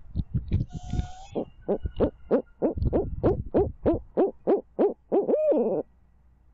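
Barred owl calling: a fast run of about a dozen hoots, roughly four a second, ending in one longer note that rises and then falls away. A few low thumps come in the first second.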